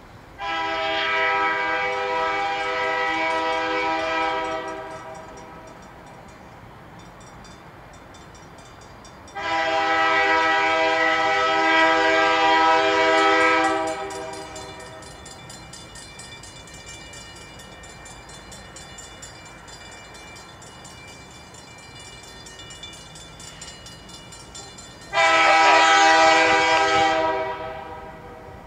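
Diesel locomotive horn sounding three long blasts as the train approaches a grade crossing: one right at the start, one about nine seconds in and one near the end. Between the blasts a crossing bell rings steadily.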